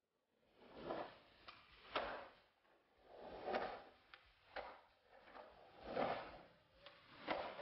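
Skateboard wheels rolling on concrete in swells, with several sharp wooden clacks of the board popping and landing.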